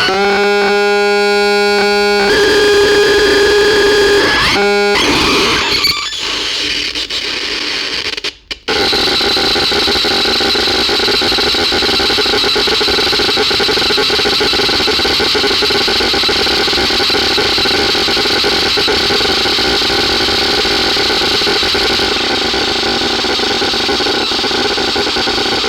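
Synthesizer making harsh electronic noise. A buzzy held tone steps to a new pitch about two seconds in and cuts out briefly. It then turns into a dense, grating noise drone with steady tones running through it, broken by a short gap about eight seconds in.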